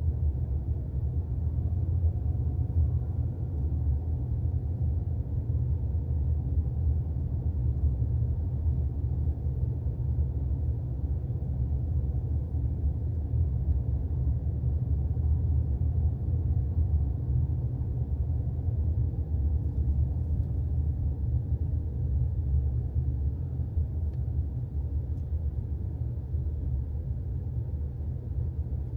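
Steady low rumble of a car driving, the road and engine noise holding even throughout.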